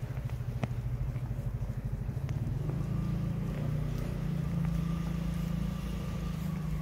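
Low, steady hum of an engine running, rising slightly in pitch and level from about three seconds in.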